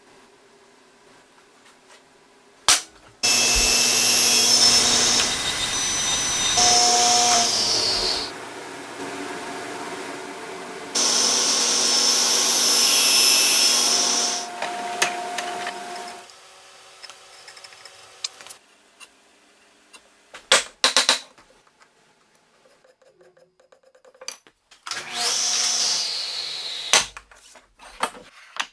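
Electric woodworking power tool running in long stretches as it cuts wood, its motor whine falling in pitch each time it winds down. Sharp knocks and taps of wood being handled come between the runs.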